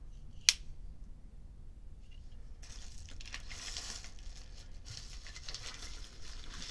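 A single sharp metallic click about half a second in, the flip lid of a vintage petrol lighter snapping shut. About two and a half seconds in, the plastic of a padded bubble mailer starts crinkling and rustling as it is handled and pulled open.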